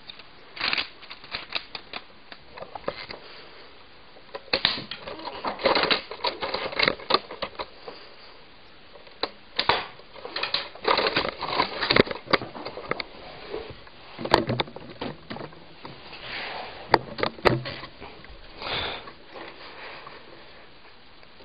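Plastic clicking and rattling of a Lego-built rifle being handled and worked: irregular clusters of clatter, with a few sharper single clicks.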